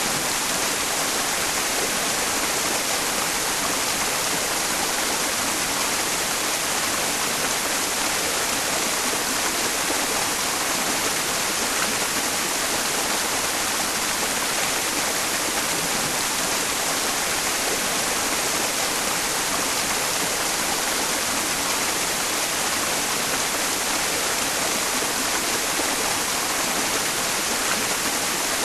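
Mountain stream running, blended with a steady white-noise hiss that makes a tinnitus-masking sleep sound; the high hiss is the strongest part and never changes.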